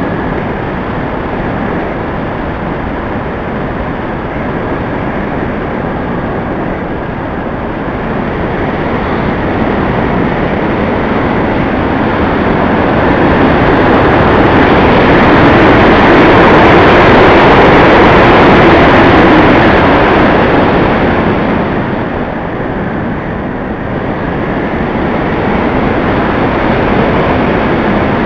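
Rushing wind and motor noise on the onboard camera of an FPV aircraft in flight, a dense steady rush that swells to its loudest in the middle and then eases off.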